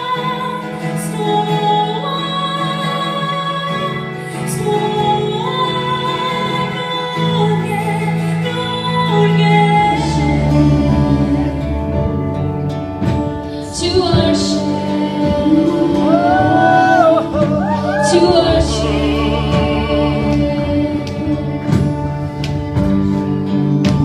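Worship music with singing over sustained chords; the music grows fuller with a stronger bass about ten seconds in.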